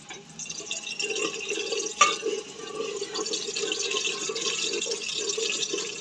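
Cooking oil being ladled and poured between steel pots, a steady trickle of liquid, with a sharp metal clink of the steel ladle about two seconds in.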